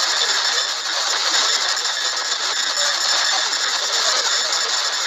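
Steady, dense crackling noise from a TV broadcast whose signal is breaking up, in place of the hip-hop music that cuts off just before.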